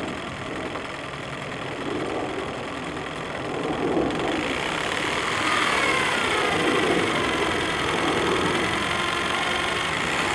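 Small steam winch, driven by a PM Research 5BI steam engine, running with a rapid mechanical clatter as it winds in the guy line and hoists a log. It gets louder about four seconds in, and a thin whine falls in pitch soon after.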